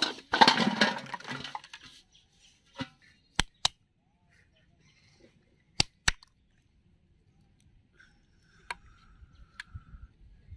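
Plastic soft-drink bottles clattering as they tip out of an aluminium pot for about two seconds. Then a wooden block knocks down hard on another block twice in two quick pairs, crushing snail shells.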